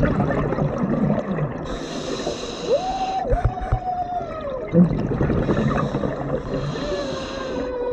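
Scuba breathing heard underwater: regulator hiss on the inhalations and gurgling exhaled bubbles. About three seconds in a drawn-out moaning tone rises, holds for about two seconds and falls away, and a fainter falling tone comes near the end.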